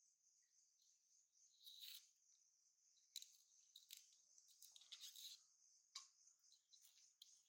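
Faint scrape-and-tear strokes of a knife peeling the skin off arum (taro) stems, a string of short strokes a second or so apart, over a steady high chirring of crickets.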